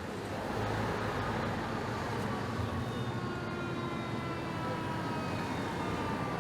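Steady engine noise with a high whine that slowly falls in pitch, from a large passing vehicle.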